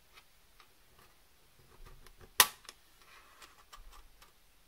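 Small clicks and taps from handling watercolour paint tubes and pans while pouring paint into pans, with one sharp, much louder click about halfway through.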